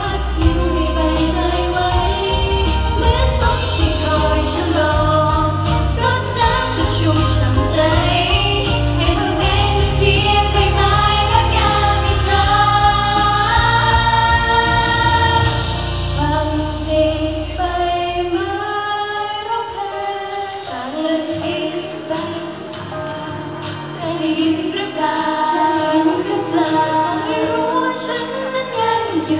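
A female idol group sings a Thai pop song live into microphones over a backing track. The heavy bass and beat drop out about two-thirds of the way through, leaving the voices over lighter accompaniment.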